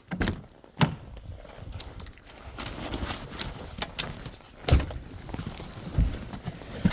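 Car engine cold-starting at −16°C, running roughly with irregular heavy knocks.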